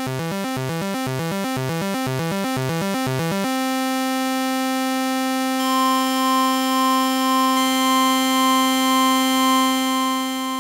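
Electronic music built from sine-wave tones. A quick pattern of alternating notes gives way after about three and a half seconds to a held chord of steady tones. Another high tone enters near six seconds, and the chord wavers slowly in loudness before starting to fade near the end.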